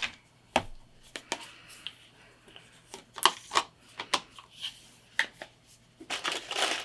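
Small items being handled at close range: scattered sharp clicks and taps with brief rustles, busier again near the end.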